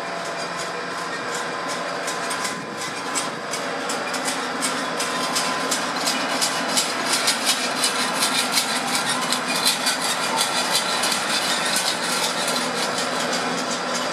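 TGV high-speed train's power car moving slowly past along a platform as it pulls away: a steady hum and whine from its fans and traction equipment. From about four seconds in, rhythmic wheel clicks over the rail joints start and come faster as the train picks up speed.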